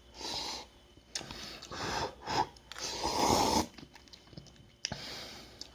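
Person eating spicy instant noodles: mouth and breathing sounds in about four short noisy bursts with quiet gaps between them.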